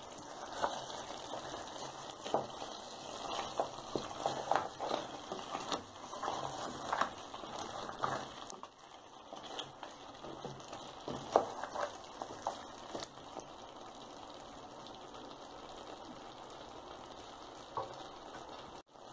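Sheep bone curry bubbling in a metal pot on a gas stove, stirred with a wooden spoon. There are frequent sharp pops for the first dozen seconds, then a steadier, quieter simmer.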